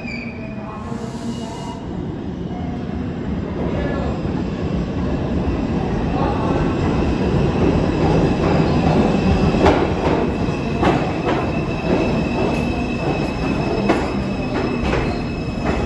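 A New York City Subway R142-series train arriving, growing louder as it comes in, with a steady high wheel squeal and a run of sharp clacks from the wheels over rail joints in the second half.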